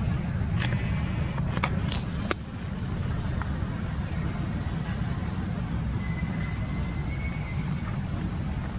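Outdoor ambience dominated by a steady low rumble, with a few sharp clicks in the first two and a half seconds and faint high thin tones about six seconds in.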